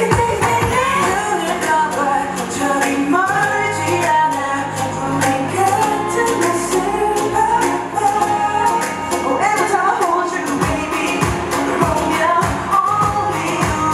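K-pop dance track with sung vocals over a steady beat.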